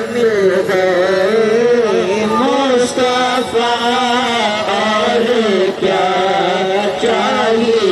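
A man's voice singing a naat, a devotional Urdu hymn to the Prophet, in one long wavering, ornamented melodic line with no clear words.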